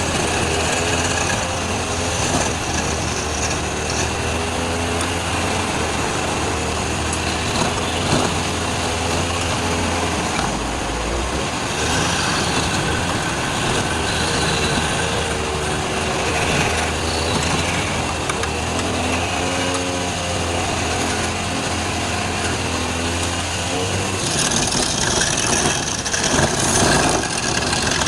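Wood lathe running with a turning tool cutting into the spinning wood: a steady motor hum under a continuous scraping, cutting noise. Near the end the hum drops away and the cutting gets louder and brighter.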